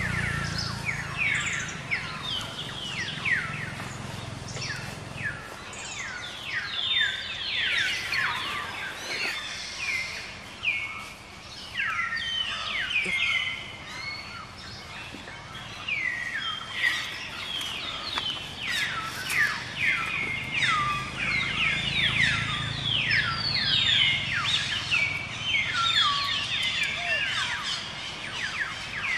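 A dense chorus of many birds chirping, overlapping quick downward-sweeping calls repeated without a break.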